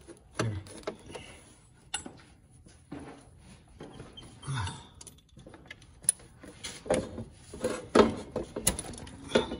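Socket ratchet working the oil pan drain bolt loose: irregular clicks and metallic knocks as the ratchet is worked and repositioned. The loudest knocks come near the end.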